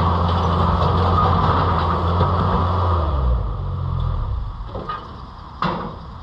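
Mini skid steer engine running steadily, then winding down about three seconds in. A couple of sharp knocks follow near the end.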